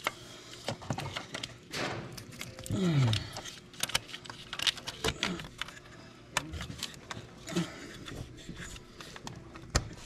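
Hand work on parts and tools: scattered clicks, knocks and light clatter, with a short low groan-like vocal sound about three seconds in.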